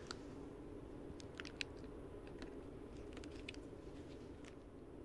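Faint, scattered crunching clicks in small clusters, loose lava rock and cinder gravel shifting underfoot, over a steady low background hum.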